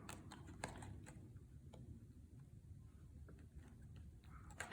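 Faint, irregular small clicks and taps of plastic toy parts being handled, over quiet room tone.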